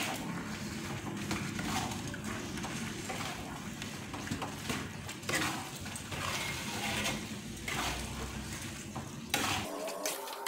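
A spatula stirring and scraping shredded skipjack tuna and spice paste around a hot pan, in repeated strokes over a low sizzle of frying oil.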